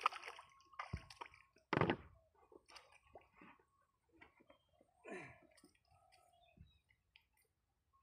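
Shallow water splashing and sloshing as a plastic-box fish trap is pulled out of it, then one loud thump a little under two seconds in; after that only faint, scattered knocks.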